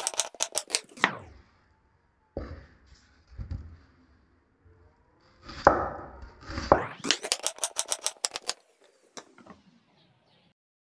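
Kitchen knife thin-slicing an onion on a bamboo cutting board: two quick runs of blade taps against the board, about six a second, one at the start and one a little past the middle, with softer knocks and handling between them.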